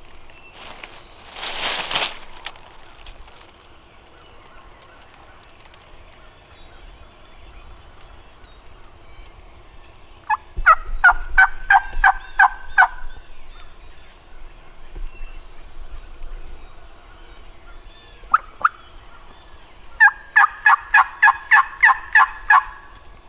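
Two runs of turkey yelps, evenly spaced notes at about three a second: about eight notes some ten seconds in and about ten near the end, with a single note between them. A brief rustle about two seconds in.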